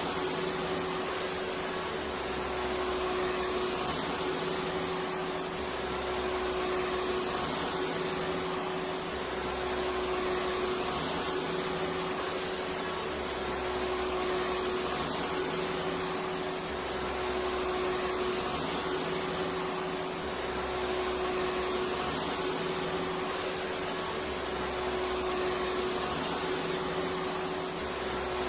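Electric vacuum cleaner running steadily: a continuous rushing noise with a steady motor whine, swelling slightly every couple of seconds.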